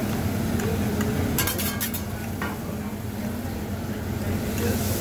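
Metal spatulas scraping and clinking on a hibachi griddle over sizzling food, with a quick run of sharp clinks about a second and a half in and another just after. A steady low hum runs underneath.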